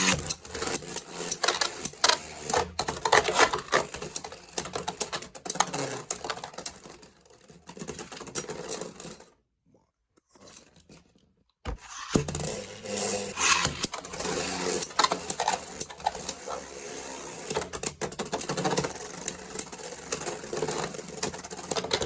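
Beyblade X spinning tops battling in a plastic stadium: a fast, rattling clatter of the tops colliding and scraping. It cuts out about nine seconds in, and a second battle starts with the same clatter about two seconds later.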